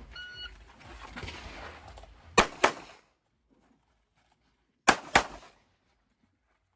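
A shot-timer beep starting the stage, then gunshots in two quick pairs, each pair about a quarter-second apart and a couple of seconds after the last.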